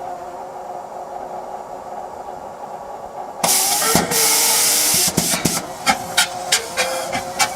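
Old helicopter engine being started: a steady whine, then a sudden loud hiss about three and a half seconds in that lasts a second and a half, followed by irregular sharp pops a few times a second as it tries to run.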